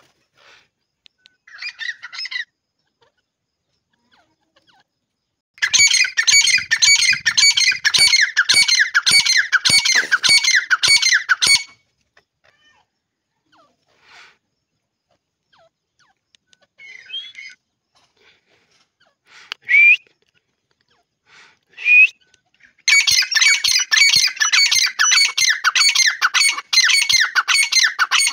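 Grey francolin (teetar) calling: two long runs of rapid, shrill repeated notes, about four a second, each lasting some six seconds, the second starting near the end. A few short single calls come between the runs.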